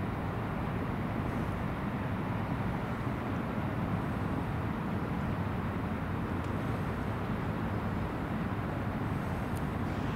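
Steady traffic noise: an even rumble of vehicles and tyres on the road.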